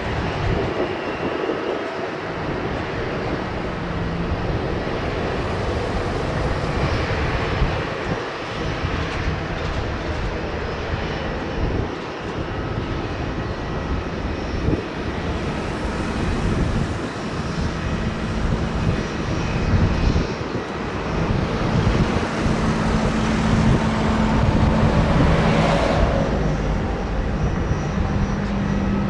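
Jet noise of an arriving Boeing 787-8 airliner: a continuous engine roar that builds toward the last third, with a whine falling in pitch near the end as it passes.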